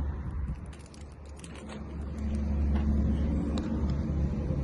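A motor vehicle's engine running close by, a low rumble that grows louder about a second and a half in and then holds steady. Small light clicks sound over it from the key and lock cylinder being handled.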